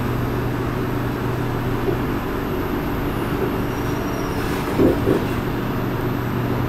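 Steady low drone and hum inside a C751B metro car standing at a platform with its doors closed, from the car's onboard equipment and ventilation. The low hum fades for a couple of seconds in the middle, and two short knocks come close together about five seconds in.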